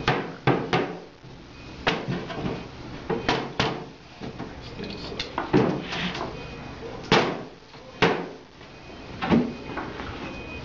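About ten irregular knocks on a wooden cabinet panel, struck as the back panel is driven down into its dado grooves.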